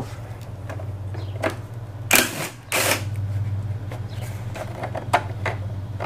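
Cordless drill-driver spinning in two short bursts about two seconds in, backing a bolt out of a push mower's cover, among light clicks and taps of the tool against the deck. A steady low hum runs underneath.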